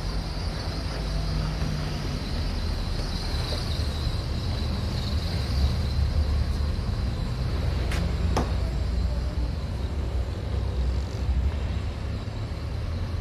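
Town street background noise: a steady low rumble, with two short sharp clicks in quick succession about eight seconds in.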